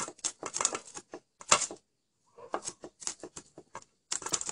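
Knife chopping small fresh chillies on a wooden cutting board: quick runs of sharp taps, with a short pause about two seconds in.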